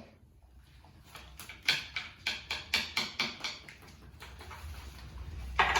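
A quick run of light taps or knocks, about three a second, lasting around two seconds.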